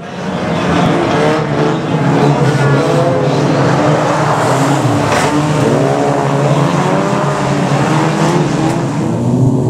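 Several small saloon race cars' engines revving hard together, their pitches rising and falling as the pack passes close, with some tyre squeal. A single sharp bang about five seconds in.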